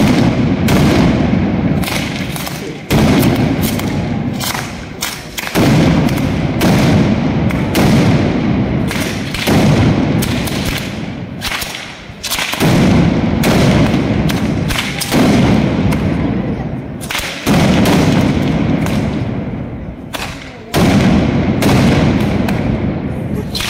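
Ground-level firecracker barrage: a loud bang every two to three seconds, each echoing and fading, with smaller sharp reports and crackling between them.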